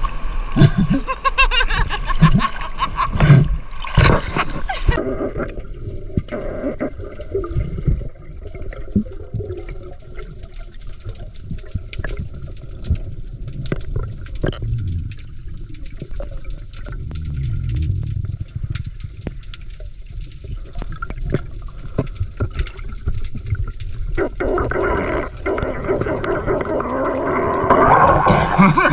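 Sea water splashing around the camera at the surface. About five seconds in, the sound turns to a muffled underwater rumble with gurgling and scattered sharp clicks. It turns back to surface splashing about 24 seconds in.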